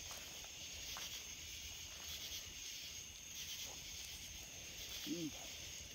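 Night insect chorus of crickets, a steady high chirring with a pulsing trill beneath it. About five seconds in comes one brief low, voice-like sound.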